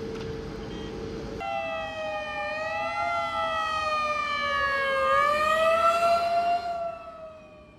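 Fire engine siren wailing with a slow rise and fall in pitch, getting louder as the truck comes up and passes close by about six seconds in, then fading. For the first second and a half, before it, a steady droning hum.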